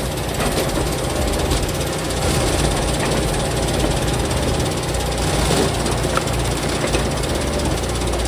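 Engine-driven log splitter running steadily under load, with a low rumble and a few faint knocks as logs are split.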